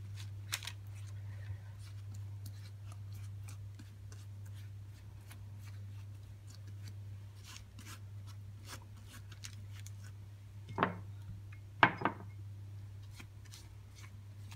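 Pastry brush dabbing and stroking beaten egg onto soft risen bun dough on a baking tray: faint, scattered soft clicks and taps, with two louder knocks about a second apart near the end, over a steady low hum.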